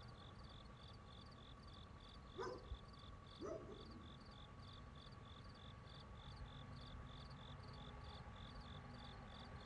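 Insects chirping in a steady rhythm, about three chirps a second, over a faint steady whirr and low rumble. Two short, louder sounds cut in about two and a half and three and a half seconds in.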